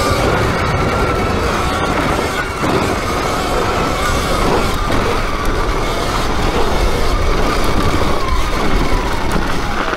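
Sur-Ron electric dirt bike riding along: the electric motor's high whine wavers with speed and drifts lower near the end, over a steady low rumble.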